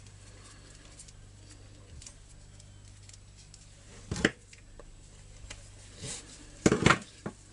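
Handling sounds of a chainsaw starter-rope job: a sharp click about four seconds in as needle-nose pliers are picked up off the bench. A few quick clicks near the end as the pliers grip and pull the new rope through the plastic starter pulley, over a low steady hum.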